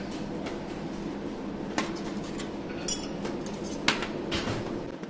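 SZ-GCS16 cold welding machine humming steadily while metal parts are handled, with a few sharp metallic clicks and a short crackling buzz about three seconds in.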